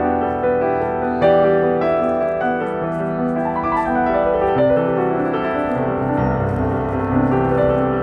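Background music led by piano, notes and chords held over a steady bed.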